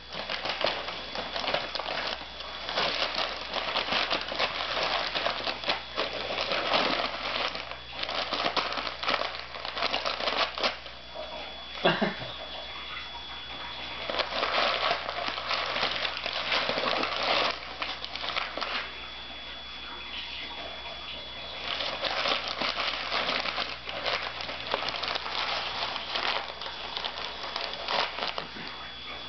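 Brown paper bag crinkling and rustling in irregular bursts as a cat rolls on it, clutching, biting and kicking it. There is one louder thump about twelve seconds in.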